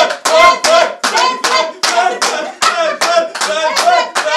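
An audience clapping in a steady rhythm, about three to four claps a second, with voices sounding along with the clapping.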